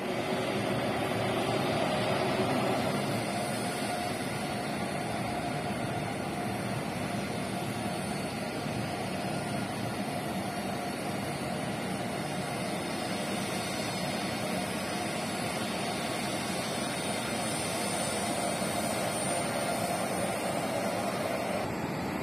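Boeing 737 jet engines running steadily at low taxi power, an even rushing drone with no rise or fall.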